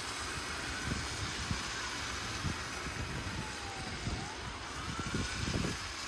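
Motorcade vehicles passing slowly on a wet, snowy road with a steady traffic hiss, while a faint siren wails slowly down and back up. Wind buffets the microphone now and then.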